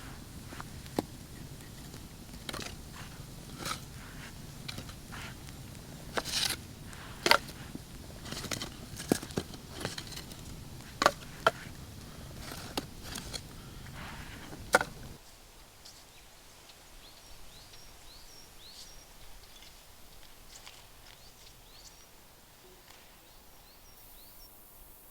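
Irregular crunches and sharp snaps over a low rumble. About fifteen seconds in the sound drops away suddenly to a quieter stretch with faint, short, high chirps.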